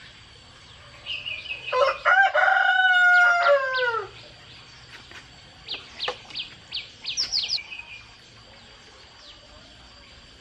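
A rooster crows once, a long call of about three seconds that drops in pitch at the end. A few seconds later a bird gives a quick run of short, high chirps.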